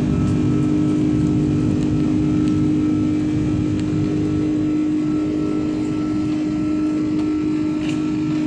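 Passenger aircraft cabin noise in flight: a steady drone of engines and rushing air, with a constant low hum running through it.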